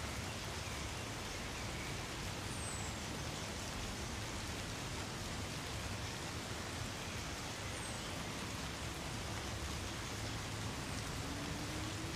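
Steady light rain falling through trees, an even patter of drops. A few faint, high, short descending chirps sound over it, and a faint low drone comes in near the end.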